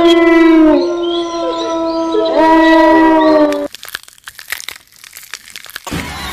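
Horror-film soundtrack: a loud, long held pitched tone with rich overtones, sliding down in pitch and back up, that cuts off abruptly about three and a half seconds in. Faint crackling clicks follow, and a loud noisy rush starts near the end.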